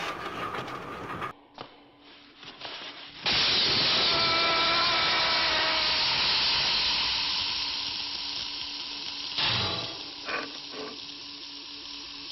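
A loud, steady hissing spray of sparks that starts suddenly about three seconds in, with a thin whine running through it, and slowly dies down. A couple of short crackling bursts follow near the end.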